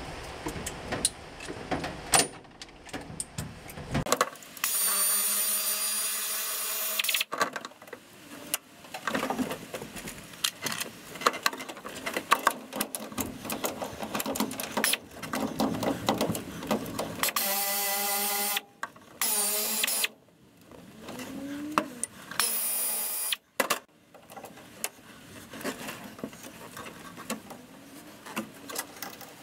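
Air ratchet running in four bursts, one of about two and a half seconds and then three of about a second each, backing off the bolts of the torque tube ball housing collar at the rear of the transmission. Clicks and knocks of the tool on metal come between the bursts.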